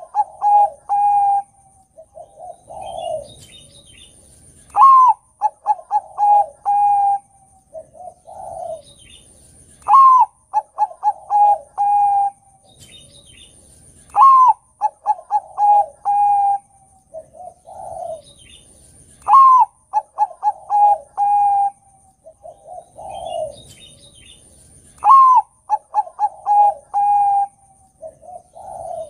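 Bangkok-strain zebra dove (perkutut) cooing its song, a phrase about every five seconds, six times in all. Each phrase is a sharp opening note, a quick run of short clipped notes, a long held coo and a lower closing note.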